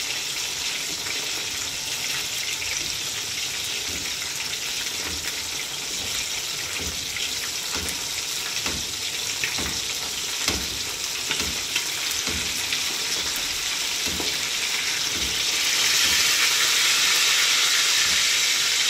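Whole fish frying in hot oil in a pan, sizzling steadily with scattered pops and crackles as hot oil is spooned over the top of the fish. The sizzle grows louder about three-quarters of the way through.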